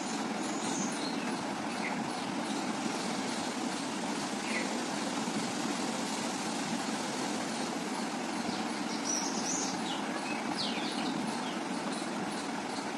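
Steady outdoor background hum in a garden, with a few short, high chirps scattered through it, several of them coming about two-thirds of the way in.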